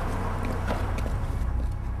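Low rumble of wind buffeting the microphone, with a few faint clicks.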